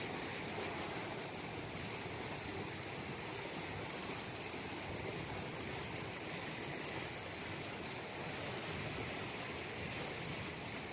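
Steady rushing noise of flowing stream water, even and unbroken throughout.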